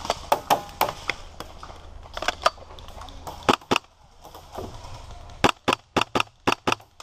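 Airsoft guns firing: scattered sharp shots in the first few seconds, then a quick string of about eight shots near the end.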